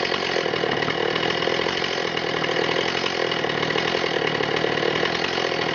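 Stihl MS 210 two-stroke chainsaw running steadily and continuously, with no break in the engine note.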